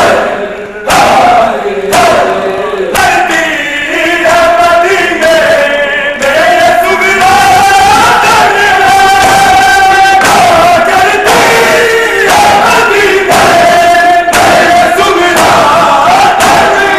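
A crowd of men chanting a Muharram noha loudly in unison, with rhythmic matam: open hands striking bare chests about once a second in time with the chant.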